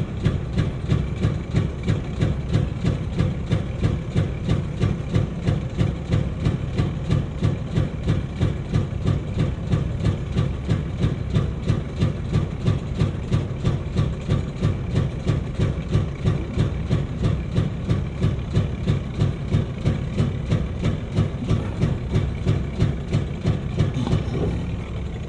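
Heavy diesel engine idling, with an even throb of about three pulses a second.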